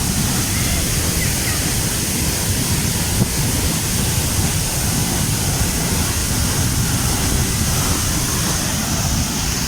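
Waterfall's steady rushing roar of falling water, with wind buffeting the microphone in a fluttering low rumble.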